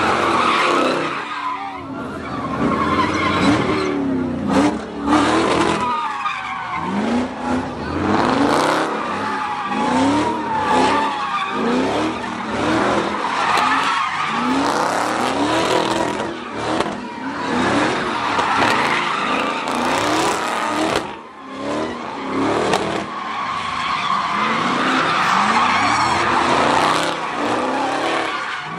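Cars doing donuts: engines revving up and down again and again, with tyres squealing and skidding on the pavement.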